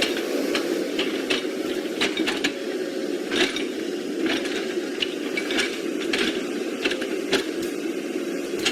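Small electric motors and plastic gearboxes of radio-controlled model construction vehicles running with a steady whir, over irregular sharp clicks and knocks.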